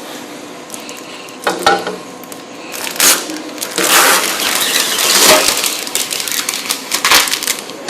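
Sponge scrubbing the mesh of a screen-printing screen to break up dried ink: rough scrubbing strokes with a few knocks, busier from about three seconds in.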